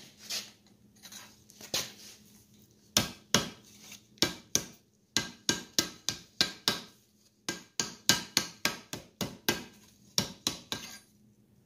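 Hand hammer striking red-hot steel over a bick iron to round it: a few light knocks, then a long series of sharp, ringing metal-on-metal blows at about three a second, in short runs with brief pauses.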